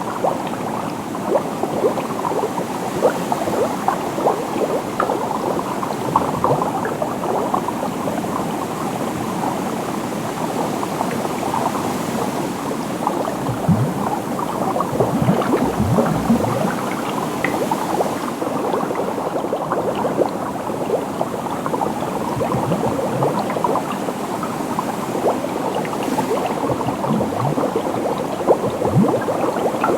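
Liquid bubbling continuously, a dense stream of small bubble pops running together, with a few deeper gurgling pops near the middle.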